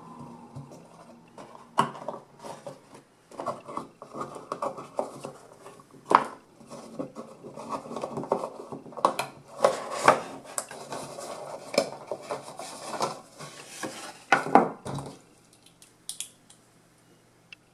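Hands handling a cardboard box and lifting in-ear headphones and their cable out of the insert: irregular clicks, taps and rustles, dying away about fifteen seconds in.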